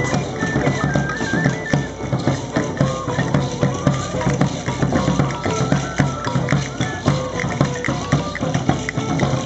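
Live procession music: a high melody line in held notes that step up and down, over dense drumming and a low steady tone underneath.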